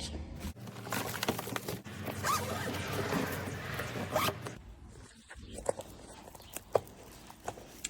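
Hands handling a hardshell suitcase: about four seconds of rustling and scraping, then a quieter stretch with a few scattered light clicks and knocks.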